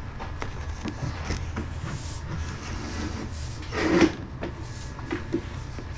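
Irregular knocks and clatter of tools and fittings being handled, over a steady low hum, with a louder clatter about four seconds in.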